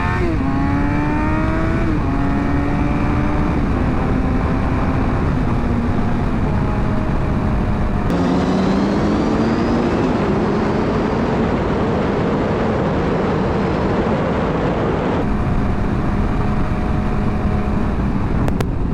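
Suzuki GSX-R 750's inline-four engine running under load while being ridden through gear changes. Its pitch drops sharply about two seconds in at a shift, wanders over the next several seconds and climbs again around eight seconds in. A rushing noise grows heavier through the middle stretch.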